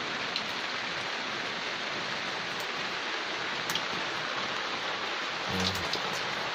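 Steady rain falling on a covered wooden boat and the river around it: an even hiss with a few scattered drop ticks.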